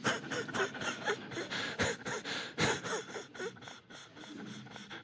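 A man imitating sobbing: quick, ragged gasping breaths, about five a second, dying away near the end.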